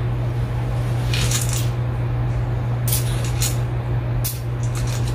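Dried pinto beans rattling as they are poured from a measuring cup and dropped into a wire-mesh colander, in three short bursts, over a steady low hum.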